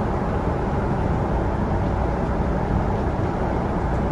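Steady cabin noise of a Boeing 777-200LR airliner in flight: an even, low rumble of engines and airflow.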